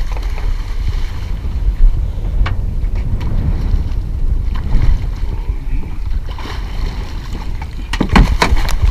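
Rough, rumbling wind and water noise on the camera's microphone over the boat's side. Near the end comes a quick burst of splashing as a hooked tarpon thrashes at the surface against the hull.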